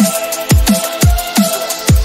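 Electronic background music with a steady beat of deep kick drums and held synth notes.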